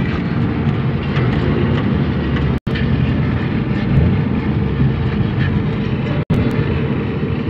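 Mitsubishi Lancer's carbureted four-cylinder engine running under way, with road noise, heard from inside the cabin; the carburetor has just been overhauled. The sound drops out for an instant twice.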